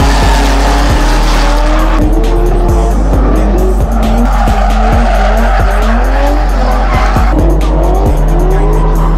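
Drift cars sliding sideways, their engines revving up and down and tyres squealing, under a music track with a heavy, steady bass and a regular beat.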